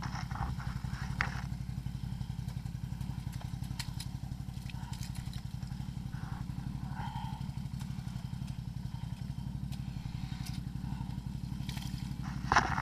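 ATV engine running steadily at an even speed, with scattered light clicks and knocks and a short louder clatter just before the end.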